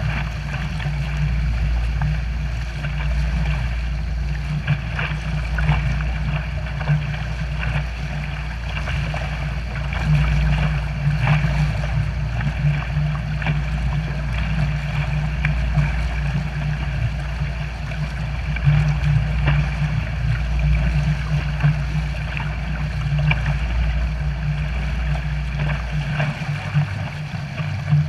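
Wake water churning behind a pontoon boat under way, with the steady drone of its 90-horsepower outboard underneath and wind rumbling on the microphone. The low wind rumble drops away near the end.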